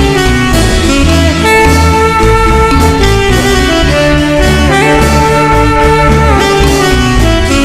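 Instrumental marimba-band music: long held melody notes over a steady bass line.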